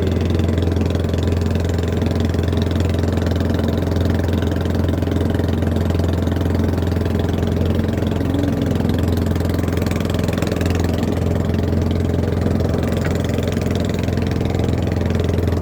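Small fishing boat's engine running steadily at a constant speed, with an even low hum.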